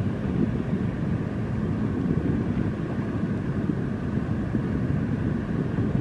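Steady low rumble of the Liebherr P996 backhoe dredger's machinery running, with a few faint steady whining tones above it and wind buffeting the microphone.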